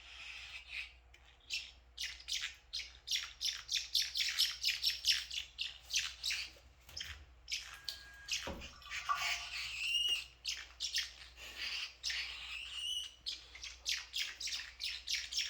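Blue parrotlets chirping: a rapid run of short, high chirps, several a second, broken by a few longer warbling calls about halfway through.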